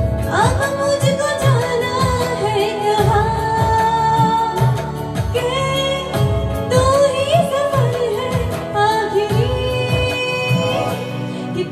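A woman singing a song solo into a handheld microphone, amplified, over a backing track with a steady beat.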